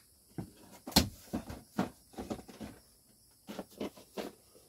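Irregular clunks, knocks and rustles of stored objects being handled and shifted while rummaging through cabinets and boxes, with the sharpest knock about a second in.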